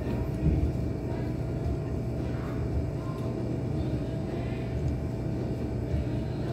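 Steady low engine rumble with a faint steady whine above it.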